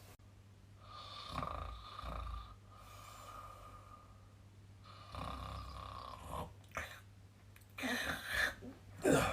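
A man snoring: about three long, breathy snores, the first two with a high whistling tone running through them, the last one the loudest, near the end.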